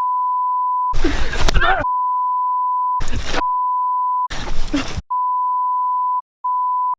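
A steady, high-pitched censor bleep tone held almost without a break, cut three times by short bursts of loud voices that are not bleeped over.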